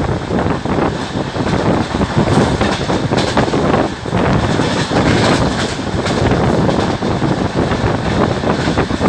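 Vaishali Express sleeper coach running at speed on the rails, heard at the open doorway: a steady loud rumble with wheels clattering over the track.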